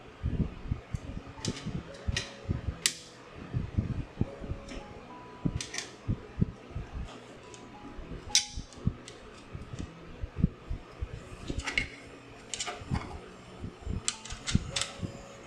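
Irregular clicks and taps of 3D-printed plastic parts being handled and a small hex key turning screws in a plastic saw table, over a low steady hum and quiet guitar music.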